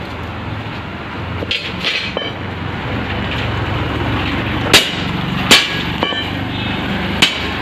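Steel reinforcing bars striking the concrete ground: several sharp metallic clanks from about halfway through, over a steady low mechanical hum.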